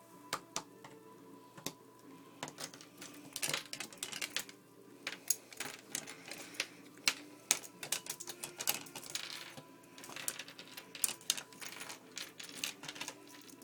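Irregular clicking and tapping, some clicks coming in quick clusters, with faint steady tones underneath.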